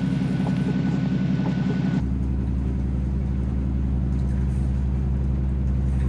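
Motor yacht's engine running steadily under way, a low drone with a constant pitch and a faint high whine over it. The tone of the drone shifts abruptly about two seconds in and the whine stops.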